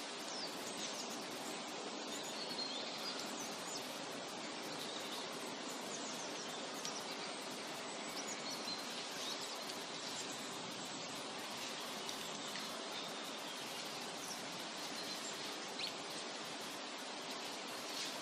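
Forest ambience: a steady, even background noise with faint, short, high bird chirps scattered throughout.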